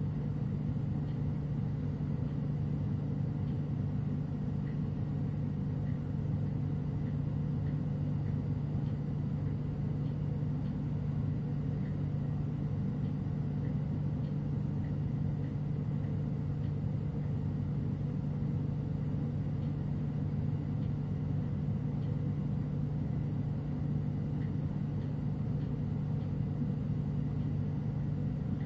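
Glassworking torch burning steadily at a lampworking bench: a constant low hum with a rushing noise that does not change.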